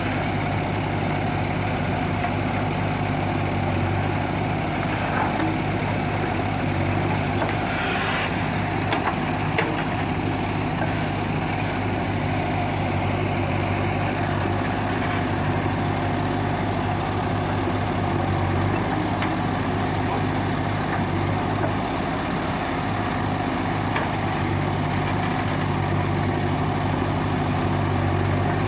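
JCB 3DX backhoe loader's diesel engine running steadily under hydraulic load while the backhoe digs soil, with a short hissing burst about eight seconds in and a few faint knocks.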